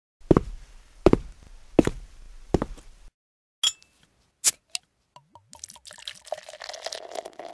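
Four heavy footsteps on a carpeted floor, evenly spaced about three-quarters of a second apart, with a low rumble of the camera being carried. A few sharp clicks follow as the camera is set down, then a faint rustling noise near the end.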